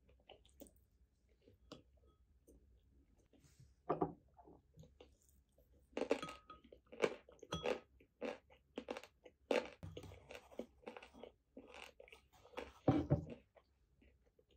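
Eating noodles: wooden chopsticks clicking and scraping against a ceramic bowl while the last of the yakisoba is gathered up, with chewing. The clicks come sparsely at first and then thick and fast for several seconds from about the middle on.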